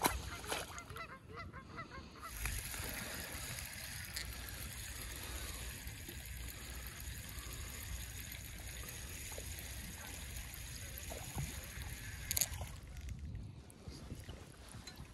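A released crappie splashes back into the water while geese honk. Then a steady hiss runs for about ten seconds and cuts off with a sharp click.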